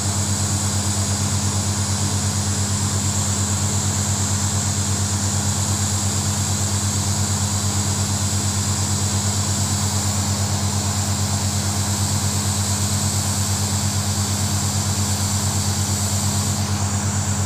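An engine running steadily with a fast, even low pulse, under a constant high hiss of air and spray from a hose pushed down into the ground. The hose is blowing a column of spray up out of the hole, the way a borewell is flushed with compressed air.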